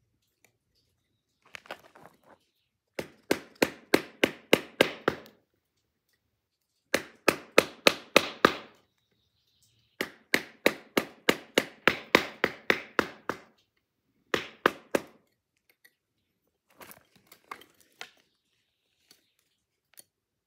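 A dull ceramic knife blade striking hard wood in quick, repeated hacking strokes, about four a second, in several runs with short pauses, and a few lighter strikes near the end.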